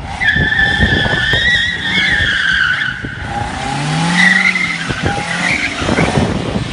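Tyres of a Mercedes-Benz C200 Kompressor estate squealing as the car drifts in tight circles on concrete, over the car's engine running hard. A loud, wavering squeal holds for about three seconds, then breaks into shorter squeals.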